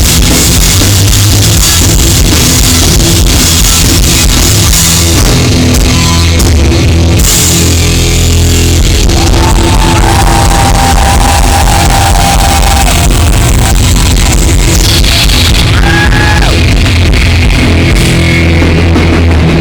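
Rock band playing loudly live, a dense, steady wall of music with a few held notes about halfway through.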